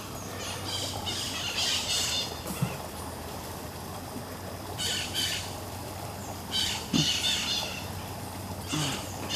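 Bird calls: a handful of short, harsh calls at uneven gaps over a steady low background hum.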